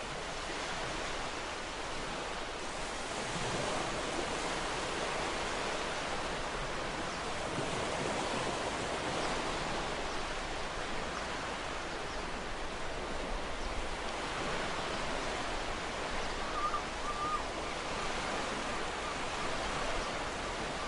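Ocean surf: waves breaking and washing up the shore in a continuous hiss that swells and eases every few seconds.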